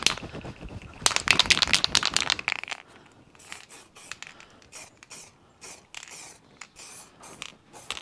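Aerosol spray-paint can being shaken, its mixing ball rattling in two loud bouts in the first three seconds, then a run of short spray bursts as paint goes onto the car's window trim for a second coat.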